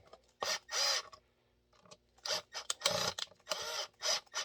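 Several short scraping, rubbing sounds from holster parts and tools being handled at the bench, about six strokes spread over a few seconds.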